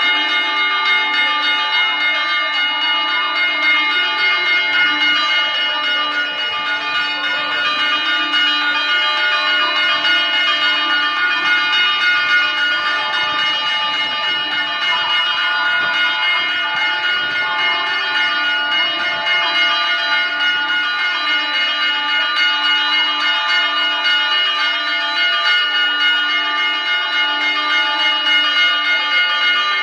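Church bells ringing in a continuous peal, many overlapping ringing tones sounding together without a pause.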